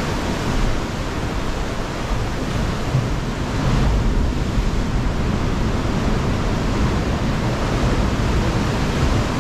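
Steady rushing noise of ocean surf inside a sea cave, with a deep rumble, getting louder about three and a half seconds in.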